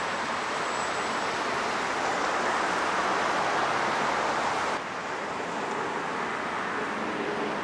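Shallow stream water running over stones, a steady rushing noise that changes tone abruptly about five seconds in.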